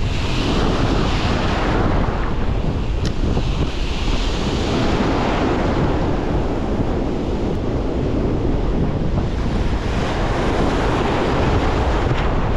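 Surf breaking and washing up the beach, the hiss swelling and fading three times, over a steady rumble of wind buffeting the microphone.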